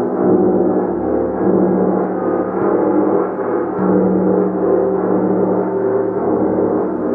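Gong played continuously: a dense, steady wash of many overlapping ringing tones that swells and dips gently about once a second.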